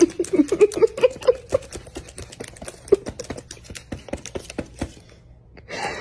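White-bellied caique pecking and pulling at a laptop keyboard: a rapid, irregular clatter of plastic key clicks that stops about five seconds in. A few short low vocal sounds come in the first second and a half.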